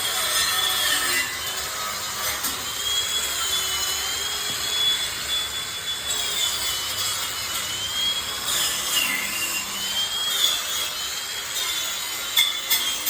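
Arc welding a steel gate bracket: the steady crackling hiss of the arc, with a high whine that wavers in pitch as the weld runs. A few sharp clicks come near the end.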